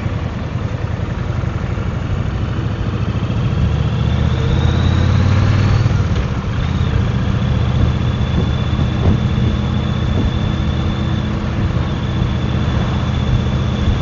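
Kawasaki VN 1500 Drifter's V-twin engine running on the move, with road and wind noise. The engine gets louder for a couple of seconds about four seconds in, and a thin high whine rises and then holds steady.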